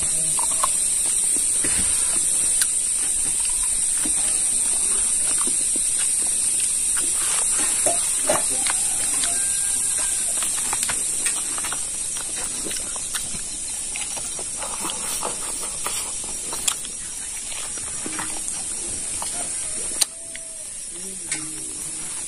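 Eating sounds: a man chewing and tearing meat off a cooked pig trotter, with scattered wet smacks and clicks of the mouth. Behind them a steady high-pitched hiss runs throughout and is the loudest sound.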